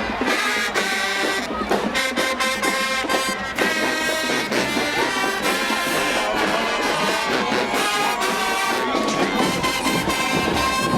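A marching ensemble of horns and drumline playing live: brass melody lines held over a driving drum beat.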